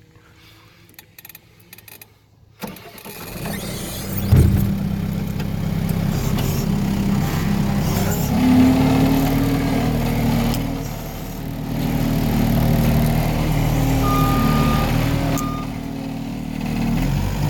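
New Holland skid steer's diesel engine comes in after a quiet opening, with a loud knock about four seconds in, then runs steadily under work, its level rising and falling. Two short beeps sound near the end.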